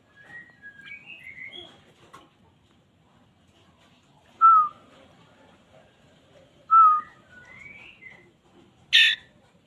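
A bird's whistled calls: a few soft chirps at first, then two loud, short falling whistles a couple of seconds apart, some rising notes, and a sharp harsh call near the end.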